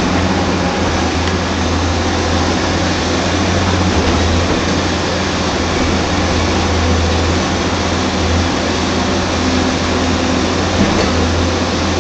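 Hyundai Robex 290LC-9 crawler excavator's diesel engine running at a steady working hum while the machine swings and digs.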